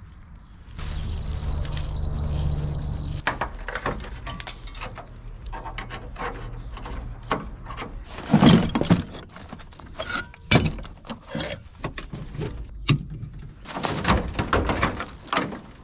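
An aerosol can of Kroil penetrating oil hissing for about two seconds as it sprays rusted lug nuts. Then metal rattles and several sharp clunks as the rusty hood latch of a 1971 Ford F600 truck is worked by hand. The loudest clunk comes a little past the middle, and a longer scraping rattle comes near the end.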